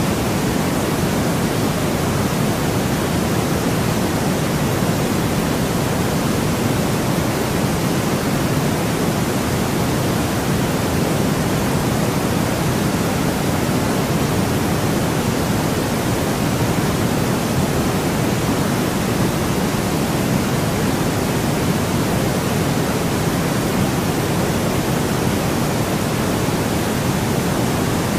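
Steady, unchanging white noise from a sleep-sound track: an even hiss with a fuller, deeper rush in the lower pitches.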